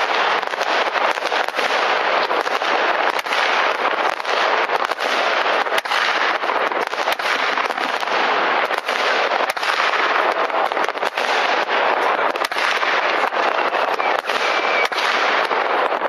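New Year's Eve rockets and firecrackers going off all over a city: a continuous mass of overlapping bangs and crackles, with many sharp reports every second and no pause.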